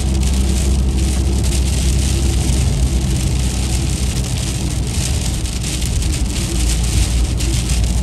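Steady car engine and tyre rumble on a wet road, heard inside the cabin, with rain hissing on the windshield and body.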